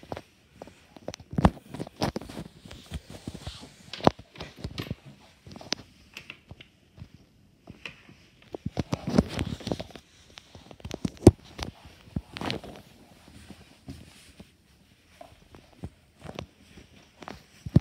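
Irregular knocks and taps with a few short rustles, the loudest knocks a little after one second, at about four seconds and at about eleven seconds.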